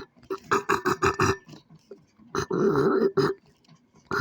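Harsh, loud vocal noises made on purpose: a quick run of short pulses about half a second in, then a longer held noise about two and a half seconds in.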